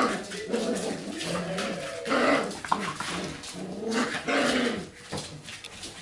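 Golden Retriever puppies growling and yapping as they play-fight, in loud bursts about two seconds apart.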